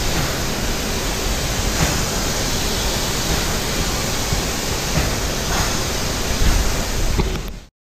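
Steady, loud hiss of a hose-fed spray gun laying hull-colour gelcoat into a fiberglass bass boat hull mold, mixed with the rush of air in the spray booth. It cuts off suddenly near the end.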